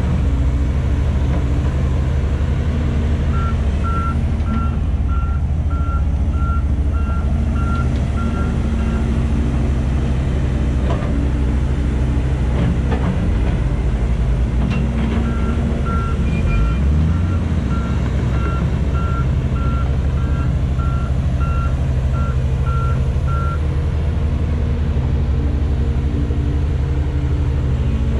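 Diesel engines of heavy earthmoving machinery, a crawler excavator among them, running steadily. A warning beeper on the machinery sounds about twice a second in two runs: from about 3 seconds in for some six seconds, and again from about 15 seconds in for some eight seconds.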